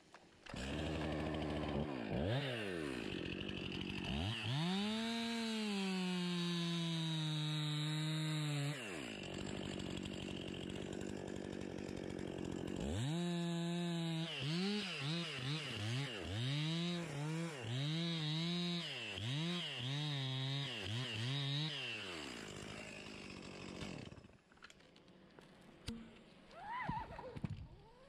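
Gas chainsaw cutting into Douglas fir wood. It is revved, then held at full throttle through a long cut with its pitch slowly dropping, then throttled up and down about once a second, and it falls back near the end.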